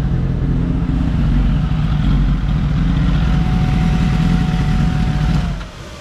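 Kawasaki ZX-10R's inline-four engine idling steadily, then switched off about five and a half seconds in, its sound cutting away to leave the quieter whir of the radiator fan, which stays on because the engine is hot.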